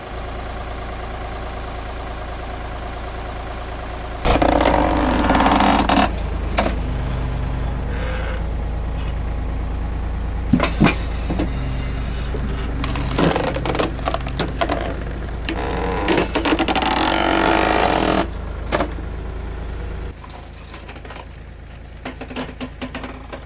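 An engine running steadily, speeding up about four seconds in and easing back near the end. Scrapes and a few sharp knocks come through in surges.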